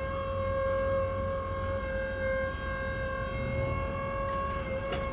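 Electric motor whining at one steady pitch, with a clear ringing overtone, then starting to wind down in pitch as it switches off at the very end.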